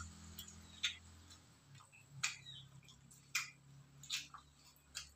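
Faint eating sounds as roast chicken is torn apart by hand on aluminium foil and chewed: about eight sharp, irregular clicks and smacks.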